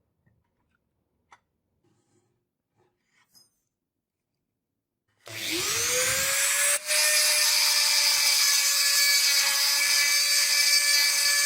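After a few seconds of near silence with faint clicks, an electric power tool is switched on about five seconds in. Its motor spins up to a steady pitch, then runs loudly with a harsh hiss, with one brief dip just after it starts.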